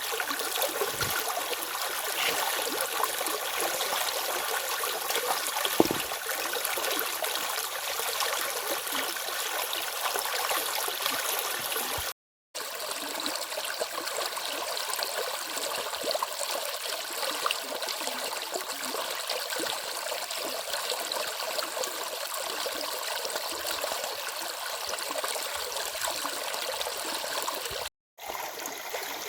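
Stream water flowing steadily over rocks and small cascades, a continuous rushing and splashing. The sound drops out to silence for a moment twice, about twelve seconds in and again near the end.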